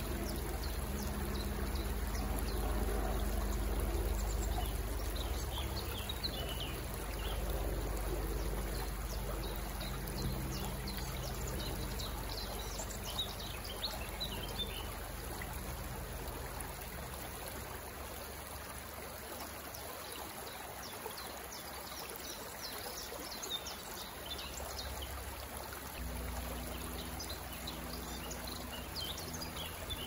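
Water trickling and pouring steadily at a lake's edge, with small birds chirping over it, most busily through the middle stretch. A low steady hum fades out after the first third and comes back near the end.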